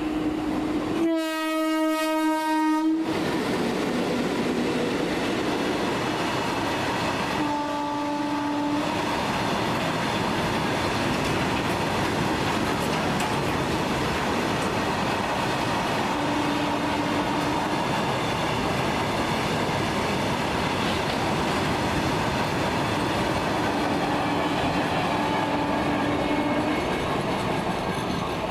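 Electric freight locomotive's horn sounds one long blast about a second in and a shorter blast about seven seconds in. After that comes the steady rumble and clickety-clack of a long freight train passing at speed, with a few faint short tones over it.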